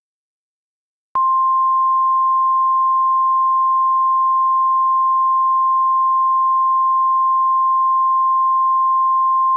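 NOAA Weather Radio 1050 Hz warning alarm tone: a single steady beep that starts sharply about a second in and holds unchanged, the alert signal that comes before a tornado watch is read.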